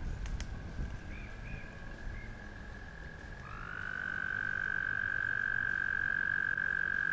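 A frog trilling: one long, steady trill that starts about halfway in with a short upward slide in pitch, over a fainter, more distant trill heard throughout.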